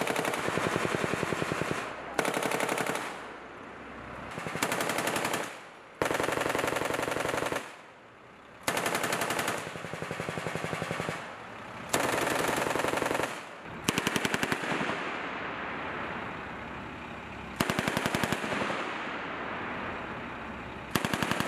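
M2A1 .50-calibre heavy machine gun firing about eight bursts of rapid shots, each lasting one to three seconds, with short pauses between them and echo trailing off after each burst.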